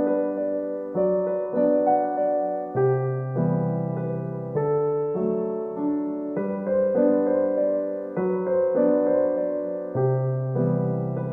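Soft background music played on piano or electric piano: slow sustained chords and notes, a new note struck about every second.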